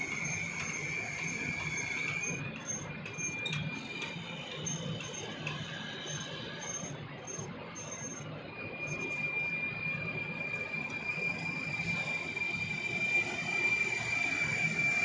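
Hand-cranked winch of a 3 m telescopic light mast being turned: a steady high squeal from the winch and mast, which breaks up briefly about two seconds in and comes back steady after about eight seconds, over a low rumble.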